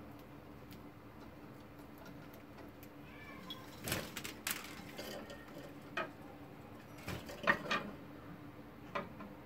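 Budgerigars chirping and squawking in short calls, mixed with wing flutters and taps as they move about and land on a wooden perch. The calls and taps begin a few seconds in and come in scattered clusters.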